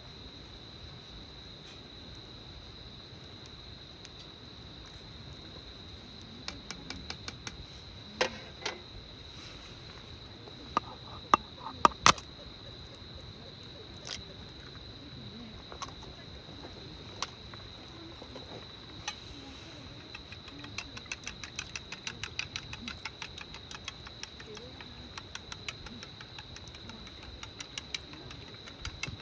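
An insect's steady high-pitched trill running throughout, typical of autumn crickets, with scattered sharp clicks and taps that grow frequent in the last third.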